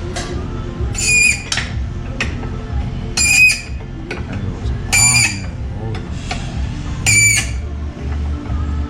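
A short, high-pitched squeak repeating about every two seconds, five times, over faint background music.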